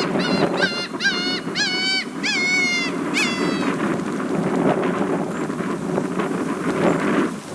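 Black-tailed gull giving a quick run of about six calls, the longest just before the third second, which stop a little after three seconds in. Strong wind buffets the microphone throughout.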